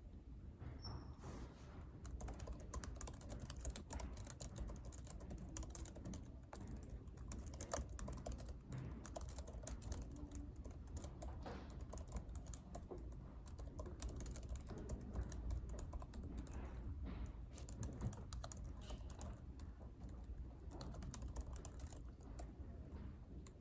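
Continuous typing on a computer keyboard: quick, irregular key clicks that become dense about two seconds in, over a steady low room rumble.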